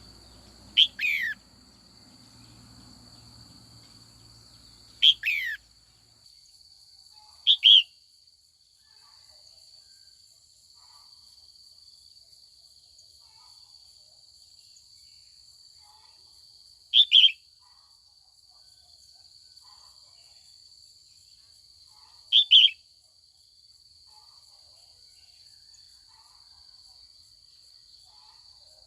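Female red-whiskered bulbul giving short, loud calls, each a quick falling phrase, in five brief bouts spaced several seconds apart, over a steady high-pitched buzz.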